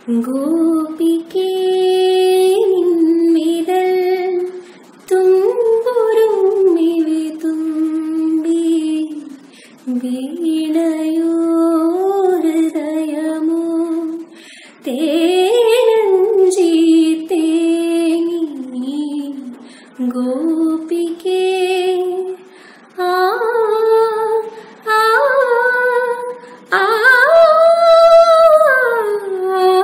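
A young woman singing solo without accompaniment, in phrases of a few seconds separated by short breaths, with held notes that slide between pitches.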